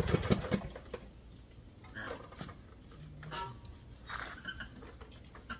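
A riding lawn mower's engine running down in its last fading pulses just after being switched off. After that it is quiet, with scattered small clicks and rustles.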